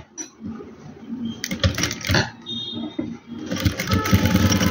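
A few light clicks and knocks as the cloth is set under the presser foot, then a sewing machine starts stitching about three and a half seconds in and runs at a fast, steady rhythm.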